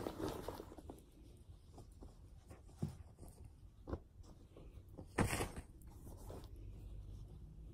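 Clothes and bag fabric being handled: faint scattered rustles and a few light knocks, with one louder rustle a little past five seconds in.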